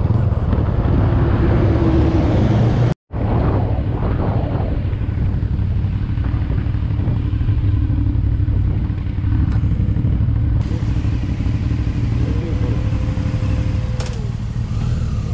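Motorcycle running under way, with heavy wind rumble on the microphone. The sound drops out briefly about three seconds in.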